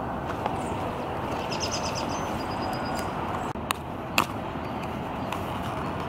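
Steady outdoor background noise, with a bird chirping a quick run of high notes about one and a half seconds in. Two sharp clicks come a little past the middle as the box is handled and opened, the second the loudest sound.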